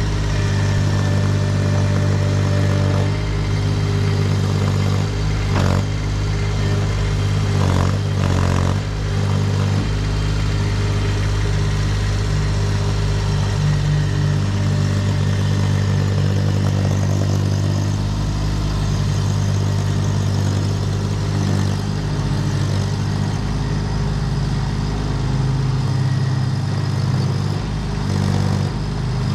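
Baumalight TRL620D mini track loader's Kubota D1105 three-cylinder diesel running steadily, its engine note shifting a few times, with a few brief clanks about six and eight seconds in.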